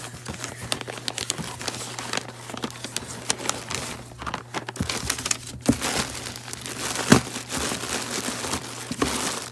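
Paper packing slip and plastic air-pillow packing crinkling and rustling as hands dig through a cardboard shipping box, with irregular sharp crackles, the loudest about seven seconds in.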